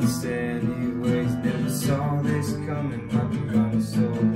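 Solo acoustic guitar strumming chords that ring on between strums, with a sharp strum about two seconds in.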